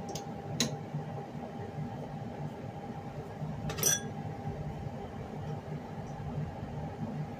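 Gas stove control knob being turned: two sharp clicks near the start and a brief metallic click with a short clink at about four seconds, over a steady low hum.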